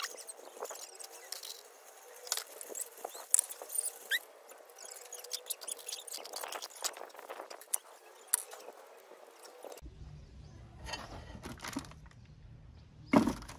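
Scattered light clicks and taps of metal parts being handled as timing chain guides are fitted to a Nissan YD25 engine, with a couple of short high chirps about four seconds in. The sound changes abruptly about ten seconds in, and one loud knock comes near the end.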